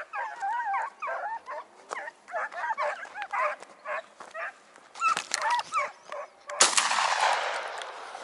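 Hounds baying and yelping on a hare's trail, many short calls rising and falling in pitch. About six and a half seconds in, a single loud shotgun shot that echoes and fades.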